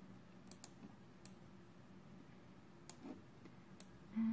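About five faint, sharp computer clicks, spaced irregularly, over quiet room tone, made while text is selected and dragged on the laptop screen.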